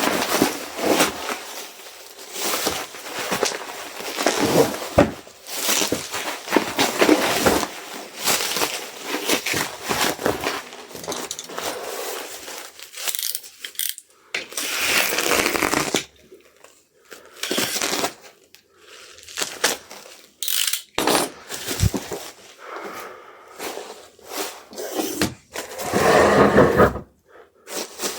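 Orders being packed by hand: rustling and crinkling of packing material with light taps, knocks and clinks, and two longer rasping stretches, one about halfway and one near the end.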